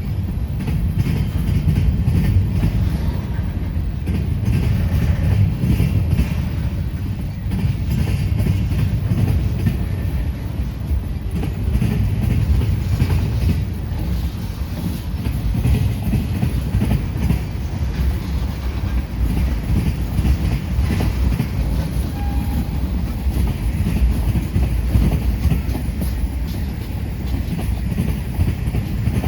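CN freight train rolling slowly past, a steady low rumble of wheels on the rails.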